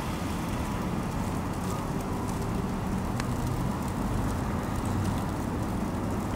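City road traffic on a snowy night: a steady low rumble and hiss of cars moving along the road.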